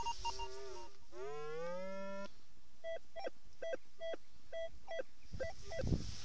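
Metal detector's audio tones as the coil is swept over the grass: a few steady tones, a smooth rising tone that cuts off sharply, then a run of short repeated beeps on target signals. A low thump near the end.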